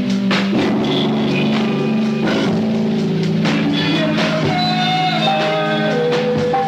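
Rock band recording playing: held melody notes that step from one pitch to the next over steady drum hits.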